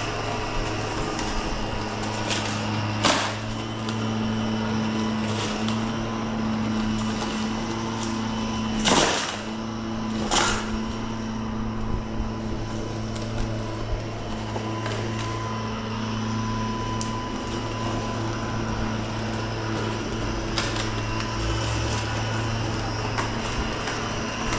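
Ozito PXC 18V brushless cordless lawn mower running steadily with a constant motor hum while it cuts grass. A few short, louder sharp noises cut across the hum in the first half.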